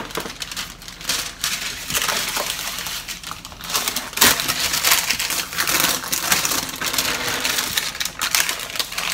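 Baking paper rustling and crinkling with many small crackles as a sheet of sponge cake is lifted and turned over on it; the loudest crackle comes about four seconds in.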